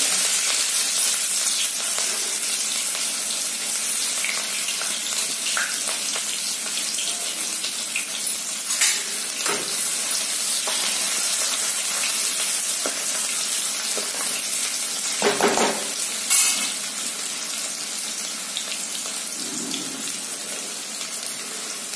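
Sliced onions frying in hot mustard oil in a kadhai: a steady sizzle, loudest at the start and slowly easing. A few sharp scrapes and knocks of a steel ladle against the pan come around the middle as the onions are stirred.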